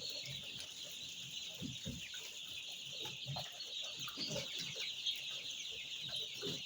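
A brood of chicks peeping continuously, a dense chorus of high cheeps, with a few soft low thumps now and then.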